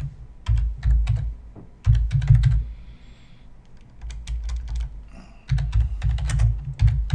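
Typing on a computer keyboard: uneven runs of key clicks with a heavy low thump under them, easing off briefly about three seconds in.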